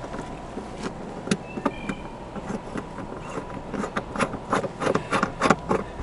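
Brass quick-release hose coupler being threaded by hand onto the gray-tank flush inlet: a run of small metallic clicks and taps, sparse at first, then closer together and louder in the last two seconds.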